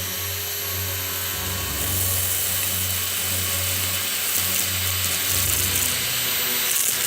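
Handheld mattress vacuum cleaner running steadily: a rushing motor-and-airflow noise with a thin high whine, over background music.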